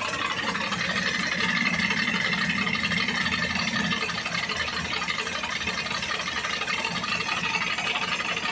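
Isuzu NPR truck's diesel engine running steadily after an overhaul, being listened to for any unusual engine noise.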